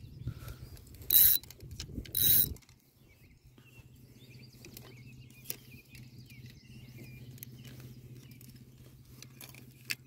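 Fishing reel being cranked on a retrieve, its gears giving a steady low whir, after two short loud rustling bursts about one and two seconds in.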